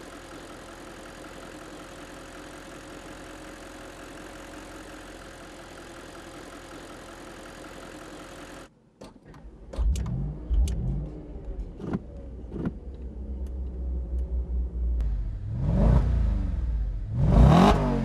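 Audi RS 5's 4.2-litre V8 idling steadily for about nine seconds. After a sudden cut it is revved in a series of sharp blips that rise and fall in pitch, with a few sharp cracks between them. The last two blips are the loudest.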